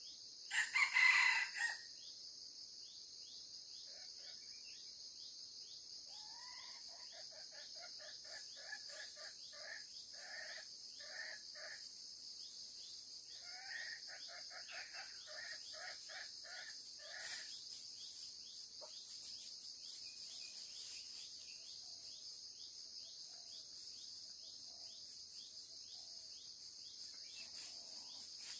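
Red junglefowl calling: a short loud crow about a second in, then two long runs of rapid clucking notes, over a steady high-pitched insect drone.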